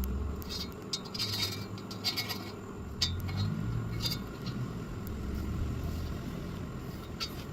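Light metallic clinks and scrapes at irregular moments, as of metal pieces being handled, over a steady low hum.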